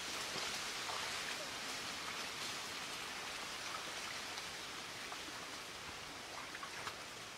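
Shallow muddy water splashing and trickling steadily as people wade through it, with a few small scattered splashes.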